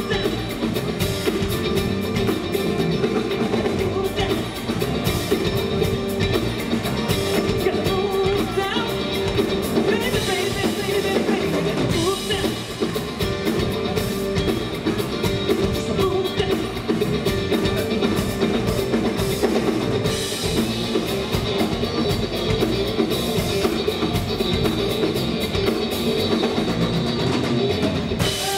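Live rock band playing: electric guitar strummed over a drum kit, loud and continuous.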